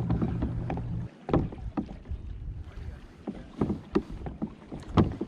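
Hobie Outback pedal kayak under way, water splashing and lapping against the hull in a run of irregular short splashes. A steady low rumble runs for about the first second and then cuts off suddenly.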